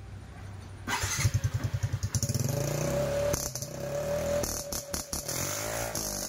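Yamaha Mio M3 scooter's single-cylinder engine starting through an aftermarket exhaust about a second in, firing in a quick pulsing run. It then settles into a steady idle, with a brief change in pitch near the end.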